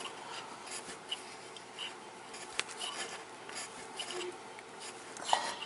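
Small metal screw-in hook being turned by hand into a pilot hole in a wooden joist: faint, irregular scraping of the threads biting into the wood, with a single sharp click about two and a half seconds in.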